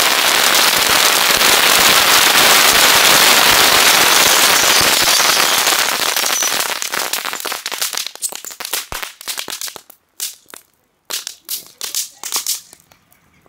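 A large mass of fireworks going off at once in a dense, continuous crackle. After about six seconds it thins into scattered single cracks and pops with gaps between them, dying away near the end.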